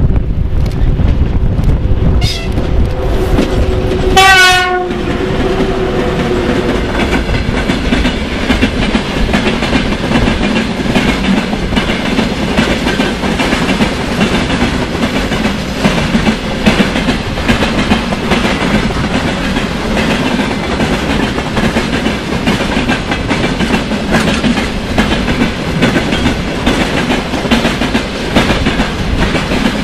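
A VL80S electric locomotive sounds its horn as it comes up and passes: a short tone about two seconds in, then a sharper blast about four seconds in, with held tones that fall slightly in pitch as it goes by. After that the long string of loaded tank cars rolls past, with a steady rhythmic clickety-clack of wheels over the rail joints.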